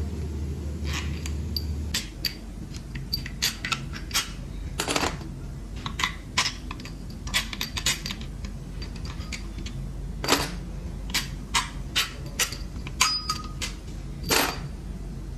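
Irregular sharp metallic clinks and clanks of hand tools and small engine parts, such as bolts and sockets, being handled during an engine teardown, a few ringing briefly. A steady low hum runs underneath and drops in level about two seconds in.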